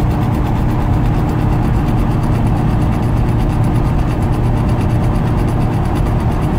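Cabin noise of a 1989 Lotus Esprit Turbo driving at about 60 mph: a loud, steady drone with a low rumble and a steady whine. The speedometer cable behind the gauge is making a racket.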